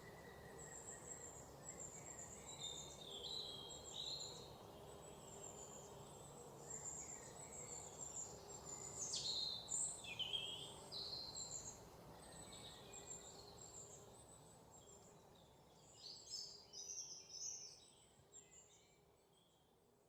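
Birds chirping and calling, with a few falling whistles about halfway through, over a faint background hiss; it all fades out near the end.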